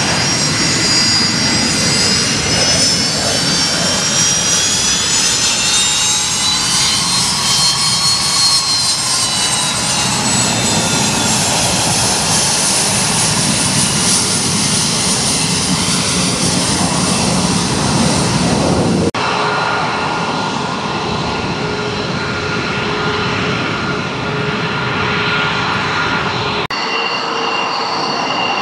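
Jet engines of a twin-engine Gulfstream business jet whining as it taxis past, the high whine bending up and then down in pitch. The sound changes abruptly about two-thirds of the way through to a steadier jet whine, and again near the end to the steady engine sound of an F-16 fighter on the runway.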